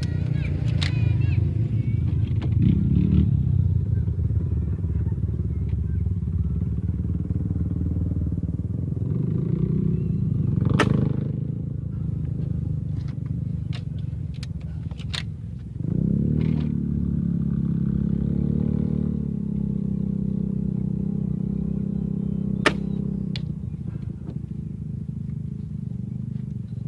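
A steady low rumble runs throughout and grows louder about 16 seconds in, with a few sharp clicks and knocks over it, the sharpest near 11 seconds and near 23 seconds.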